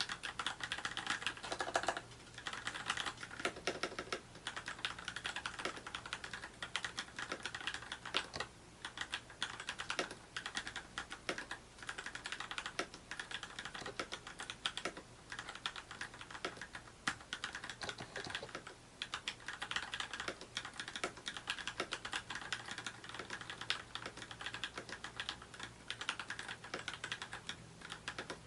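Typing on a mechanical keyboard fitted with lubricated Gateron Clear linear switches (35 g): rapid, continuous keystrokes clacking, with brief pauses.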